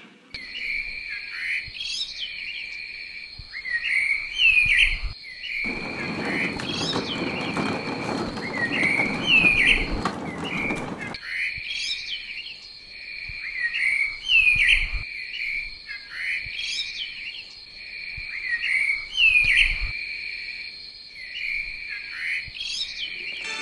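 Forest ambience of birds chirping and calling in a repeating pattern over a steady, high-pitched insect drone. From about five to eleven seconds in, a rushing noise joins.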